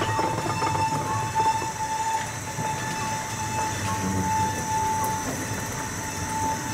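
Small-gauge tourist train coaches rolling past with a low rumble. A steady single high tone runs over it and stops about five seconds in.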